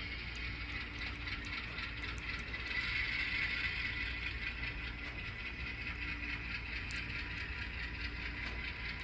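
HO scale Atlas ALCO RS3 model diesel locomotive running slowly along the track, a steady low hum with a higher hiss over it and a few faint clicks.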